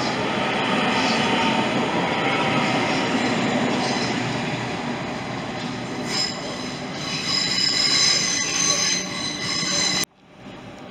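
Hitachi Class 800 train running along the platform with a steady rumble of wheels on the rails. From about six seconds in, high steady squealing tones join. The sound cuts off abruptly about ten seconds in.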